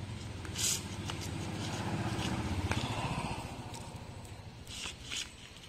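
A motor vehicle engine running, loudest in the first half and fading away over the last couple of seconds, with a few short scraping sounds over it.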